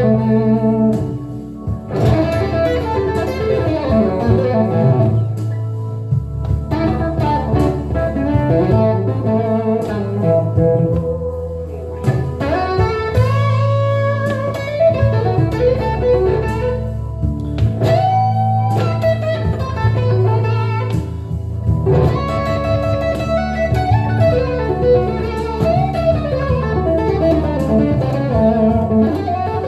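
Telecaster-style electric guitar improvising a blues lead: runs of single notes and string bends over steady held low notes.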